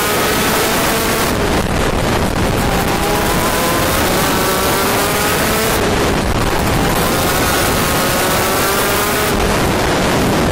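An 80cc two-stroke shifter kart engine heard onboard at racing speed: its revs climb in long rising sweeps. The run is broken three times, about a second and a half in, near six seconds and near the end, where the engine eases off briefly before pulling again.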